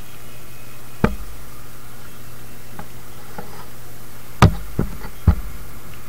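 Sharp knocks, one about a second in and three close together near the end, over a steady low hum.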